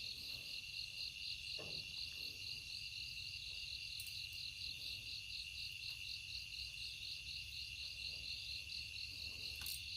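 A steady chorus of insects: one high continuous trill, with another high note pulsing about four times a second.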